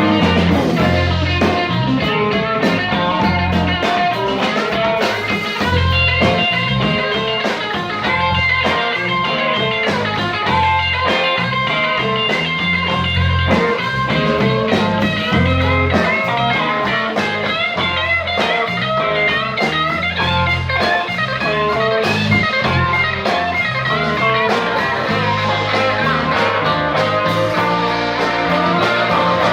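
Blues-rock band playing, electric guitar over bass and drums with a steady beat.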